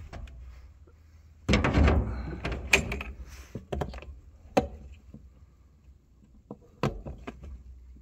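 A 5-gallon plastic pail of hydraulic oil set down with a thud about a second and a half in, then a string of sharp clicks and snaps as its plastic lid is worked loose by hand.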